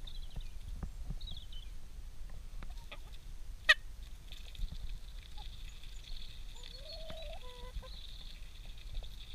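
Chickens and a white duck pecking grain from an open hand: light clicks of beaks, with one sharp click about four seconds in. Near the end one of the birds gives a call about a second long that rises and then holds.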